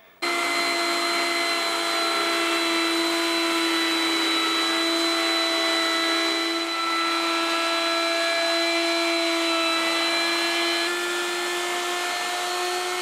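Jepson plunge router running with a straight bit, surfacing a board as it is slid across a flattening jig. A steady, high motor whine starts abruptly and holds, with a slight shift in pitch near the end.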